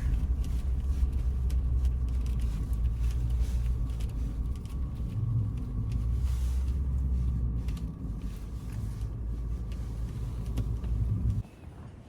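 Car driving: a steady low rumble of engine and road noise that cuts off suddenly near the end.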